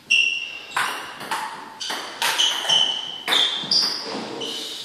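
Table tennis rally: the ball clicking back and forth off the paddles and the table, about two hits a second, each with a short ringing ping.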